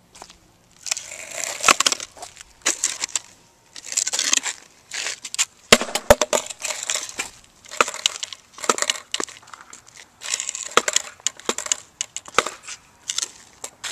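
Handling noise from a camera microphone rubbing and bumping against clothing: irregular bursts of crackly rustle about once a second, with a few sharp knocks.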